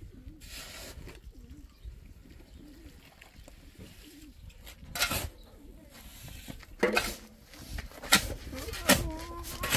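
Steel shovel scraping and scooping into sand and grit, four sharp strokes in the second half. A dove coos in the background, early and again near the end.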